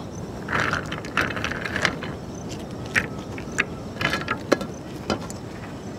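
Irregular small clicks and short scrapes as fried cashew nuts are tipped and scraped off a steel plate into a clay pot.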